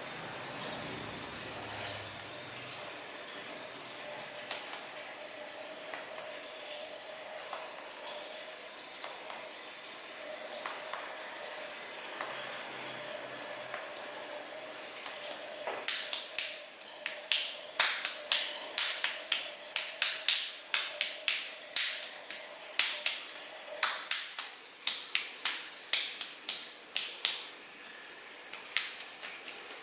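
Hands working a client's wet hair and scalp with a soft, steady rustle. About halfway in, rhythmic sharp claps begin, about two a second, as the masseuse presses her palms together and chops them against the head in percussion massage.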